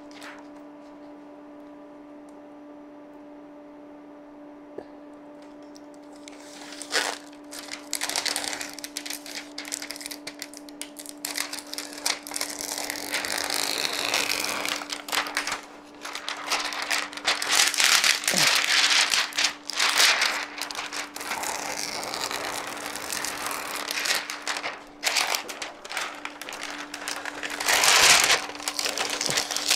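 Clear protective plastic film being peeled off a flat-screen TV's screen, crinkling and crackling in repeated loud stretches that start about six seconds in.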